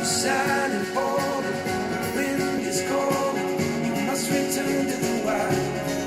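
A guitar-driven rock song played back through a pair of Tannoy Gold 5 studio monitors and picked up by room microphones.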